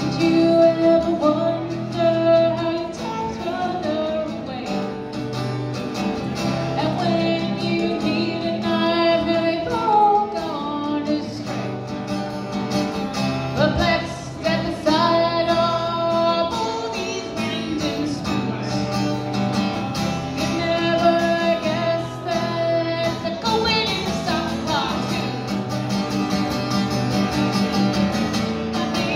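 A singer performing a song live to their own acoustic guitar, sung into a microphone and played through a small PA.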